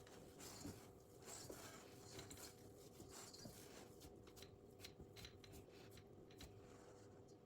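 Faint rustling and scattered light clicks and taps from hands handling things, over a steady low hum.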